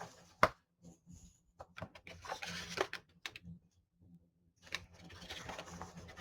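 Snack packages being handled on a table: a sharp tap about half a second in, then crinkling and rustling of plastic wrappers, with a short silence a little before the end.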